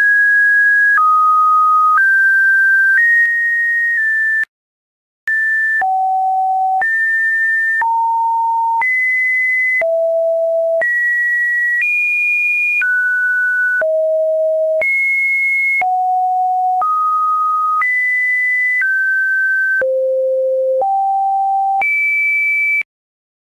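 Webdriver Torso test-video beeps: a string of single pure electronic tones, one about every second, each at a different pitch that jumps up and down at random from low to high. There is a brief gap about four and a half seconds in, and the tones stop shortly before the end.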